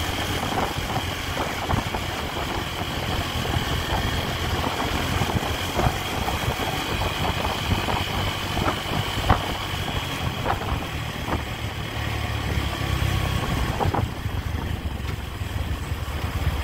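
Honda Tiger motorcycle's single-cylinder four-stroke engine running steadily while riding, under a constant rush of wind and road noise.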